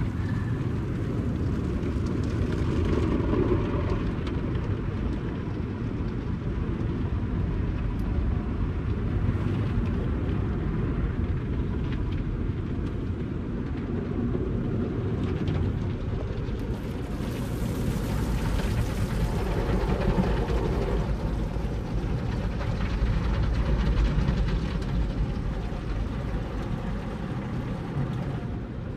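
Automatic tunnel car wash heard from inside the car's cabin: water spray and the wash brushes and cloth strips working over the body and windshield, a steady muffled rumble. It swells and gains a brighter hiss of spray a little past halfway through.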